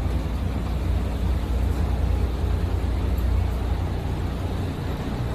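A houseboat's engine running, heard from inside the cabin as a steady low rumble.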